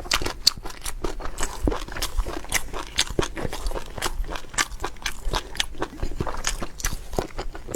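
Close-miked chewing and biting of meat: wet, irregular mouth clicks and smacks, several a second.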